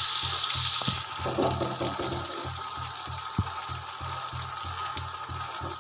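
Turmeric paste frying in hot mustard oil in an iron kadhai, sizzling, with a metal spatula clicking and scraping against the pan as the lump is stirred and broken up. The sizzle is loudest for about the first second, then drops to a softer hiss.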